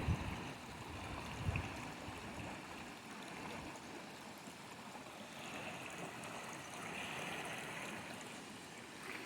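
Rain-swollen creek water running steadily, a fairly faint even rushing. A soft low thump or two in the first couple of seconds.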